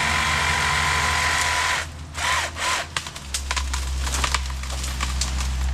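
Racing-drone motors whining steadily, then about two seconds in dropping off into short crackling bursts and brief blips of motor pitch, with a low hum underneath later on.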